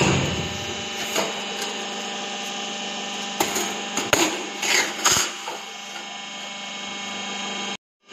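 Sheet-metal shearing machine running with a steady hum, while a steel sheet is slid and positioned on its bed. Several short metallic clanks and scrapes come between about one and five seconds in, and the sound cuts out briefly near the end.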